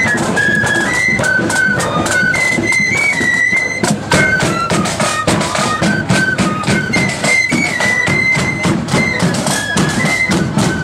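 Marching flute band playing a tune: flutes in unison carry the melody over fast side-drum beating and bass drum beats.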